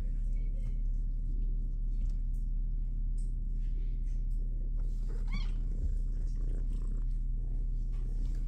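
Tabby kitten purring steadily while being stroked, with one brief meow about five seconds in.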